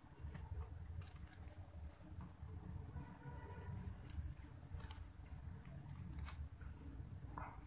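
Faint clicks and rustles of pearl beads and thin wire being handled and twisted together, over a low steady background rumble.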